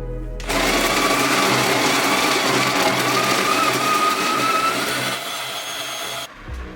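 Electric coffee grinder grinding beans: a steady whirring whine that starts about half a second in and cuts off suddenly near the end, over background music.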